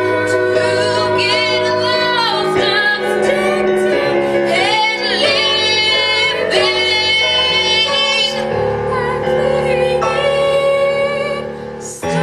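A woman singing a musical-theatre song over instrumental accompaniment, with long held notes that waver in pitch. The sound dips briefly just before the end.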